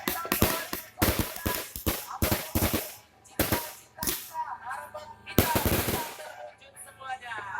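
New Year fireworks and firecrackers going off in rapid clusters of sharp bangs and crackles, with the loudest run of bangs about five and a half seconds in.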